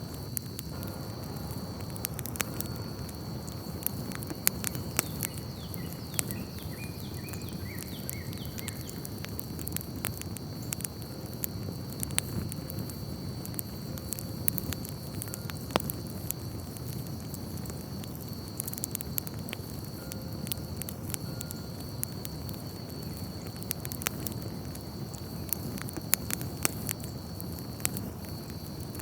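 Crackling fire: a steady low rush with irregular sharp pops and snaps, over a steady high-pitched hum.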